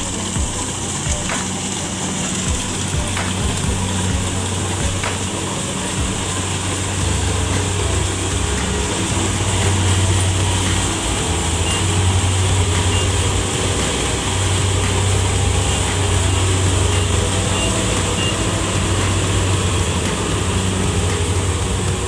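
Rice combine harvester running as it cuts and threshes, its engine a steady low drone under a constant rushing noise. It grows louder as the machine passes close by, about a third of the way in.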